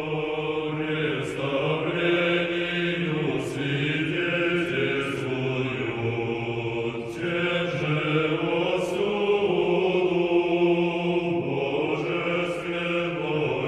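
Slow Orthodox church chant sung by male voices, with long held notes that move in slow steps.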